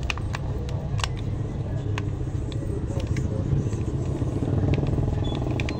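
Scattered sharp clicks of a Shashibo magnetic shape-shifting cube, its magnetic panels snapping together as it is folded into new shapes, over a steady low rumble.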